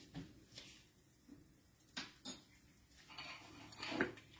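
A few scattered light clinks and knocks of kitchenware as a bowl and utensil are handled, with quiet stretches between them.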